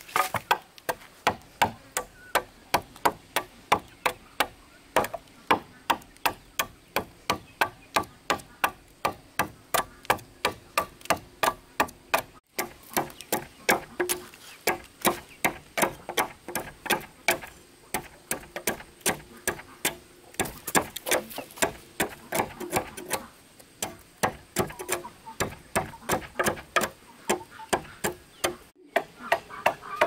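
Machete blade chopping into the edge of a wooden plank, hewing it to shape: quick, regular strokes, about three a second, each a sharp knock of steel on wood.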